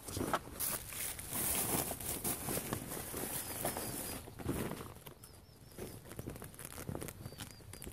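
Rustling and crinkling of a waterproof dry bag's coated fabric as camping gear is stuffed into it, dense at first and then thinning to scattered rustles as the roll-top is folded over.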